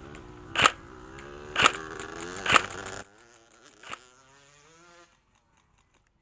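Airsoft gun fired in three single shots about a second apart, each a sharp crack. The sound cuts off abruptly about three seconds in, leaving one faint click and then silence.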